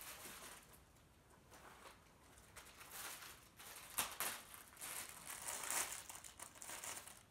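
A bag crinkling and rustling as a pair of sunglasses is pulled out of it, faint at first and busier from about halfway through, with one sharp click.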